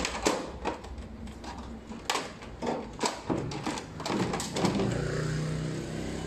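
Plastic parts of an automatic mahjong table knocking and clicking as a plastic panel assembly is unclipped and lifted out of the frame. A low steady hum comes in about four and a half seconds in.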